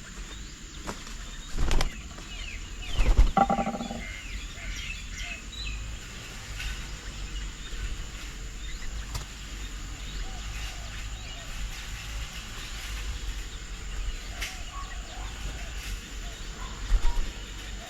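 Birds chirping and calling at a garden bird table. A sudden louder sound comes at about two seconds, and a short, louder pitched call follows about three seconds in.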